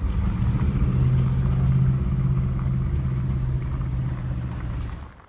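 Car engine and road rumble heard from inside a moving vehicle: a steady low hum that cuts off about five seconds in.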